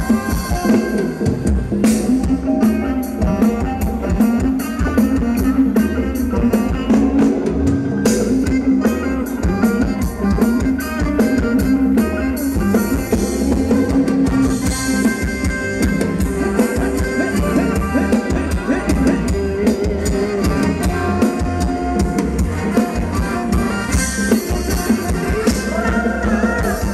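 Live Thai ramwong dance-band music: an instrumental passage with a steady drum-kit beat under a sustained melody.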